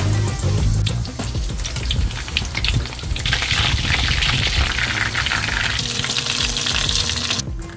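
Battered, stuffed cucumber chili peppers deep-frying in hot oil: a dense, steady sizzle with crackling that grows much stronger about three seconds in, then cuts off suddenly near the end.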